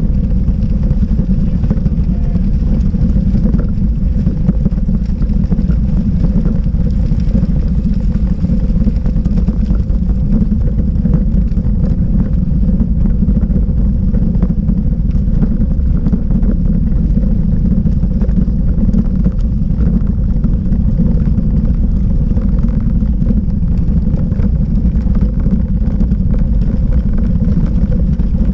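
Bicycle tyres rolling over cobblestones, heard through a camera mounted on the bike: a loud, steady low rumble with dense fine rattling as the stones shake the bike and mount.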